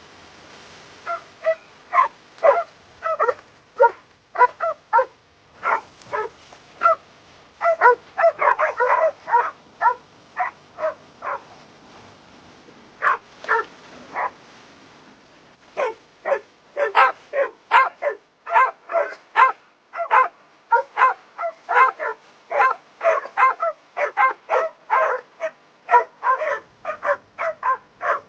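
Dog barking repeatedly: short, sharp barks in quick runs of about two a second, with a brief lull a little before halfway.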